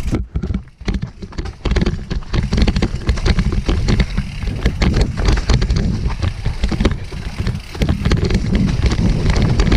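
Mountain bike rolling fast down rocky singletrack: a continual clatter of knocks and rattles as it jolts over rocks and roots, over a low rumble. It starts quieter and builds to a dense clatter after about a second and a half.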